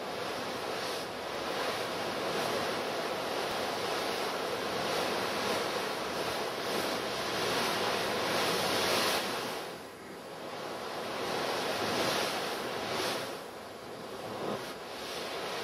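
A dense rushing noise, like surf or wind, that rises at the start and swells and fades, dipping briefly about ten seconds in and again near the end.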